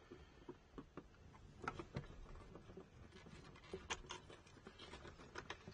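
Faint handling noise: a few light clicks and scrapes as fingers work a plastic TV wall plate and its wiring while a cable is fed through the wall.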